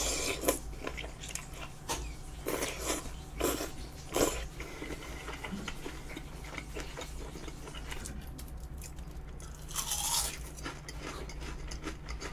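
Close-miked eating: a person biting into and chewing a mouthful of spicy fish-cake tteokbokki with stretchy melted cheese. The bites and chews are busiest in the first four seconds, and there is a louder mouth noise about ten seconds in.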